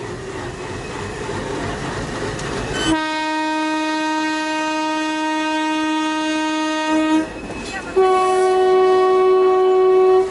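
Indian Railways ALCO diesel locomotive horn sounding two long blasts over the noise of a moving train. A lower-pitched blast starts about three seconds in and lasts about four seconds. After a short break, a higher-pitched blast holds for the last two seconds or so.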